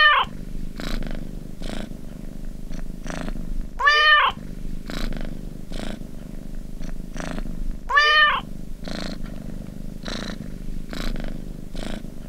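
Domestic cat meowing and purring, used as a timer's end alarm. There are three short meows about four seconds apart, each rising and then falling in pitch, with continuous purring between them.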